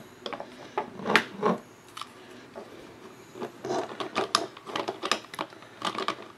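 Hard plastic parts of a DX combining robot toy being handled and snapped together: a scatter of irregular clicks and knocks, more of them in the second half.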